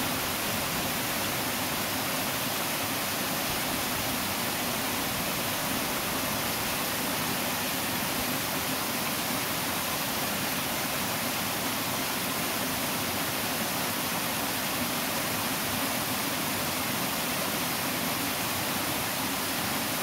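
Small waterfall cascading over boulders into a shallow pool: a steady, even rush of falling water with no change.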